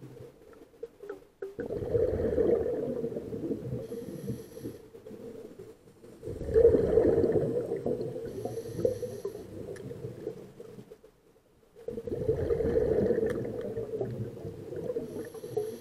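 A scuba diver's exhaled bubbles from the regulator, heard underwater: three long exhalations of about four seconds each, with short quiet pauses between them while the diver breathes in.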